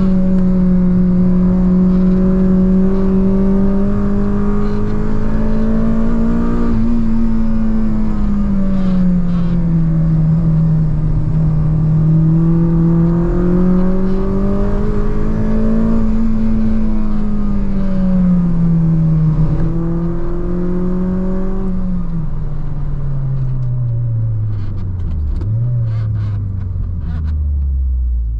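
Honda Civic Type R FD2's K20 inline-four engine pulling at high revs, its note rising and falling with the throttle. Over the last few seconds the note drops steadily as the car slows, with one short rev blip partway down.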